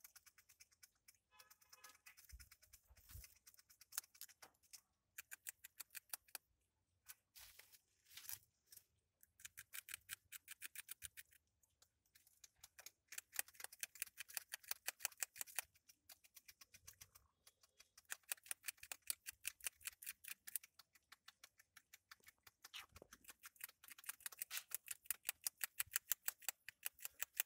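A grasscutter (greater cane rat) chewing green stalks: rapid, crisp bites that come in runs of a few seconds, with short pauses between them.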